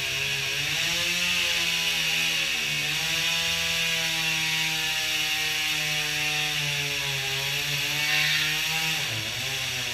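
Handheld power tool cutting into a wooden timber beam. Its motor pitch rises and falls several times as it works, then drops off near the end.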